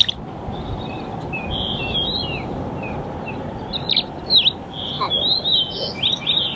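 Small birds calling: quick, high chirps that sweep down in pitch, coming in a run about four seconds in, among softer, shorter warbled notes.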